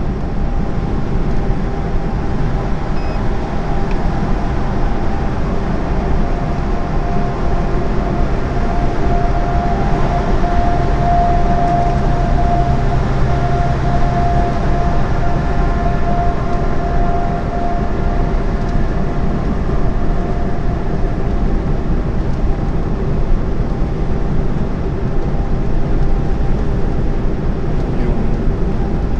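Steady drone inside a semi-trailer truck's cab at motorway speed: diesel engine and tyre-on-road noise, with a faint whine that grows stronger in the middle and then fades.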